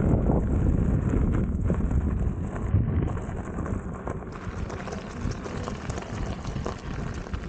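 Wind buffeting the microphone of a camera moving along a gravel trail, with the crackle of tyres rolling over loose gravel; the noise eases off about four seconds in.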